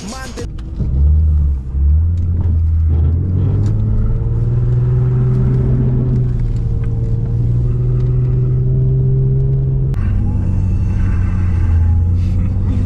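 Car engine running, its low hum stepping up in pitch over the first couple of seconds as it revs, then holding steady. About ten seconds in the sound changes abruptly, with more hiss on top.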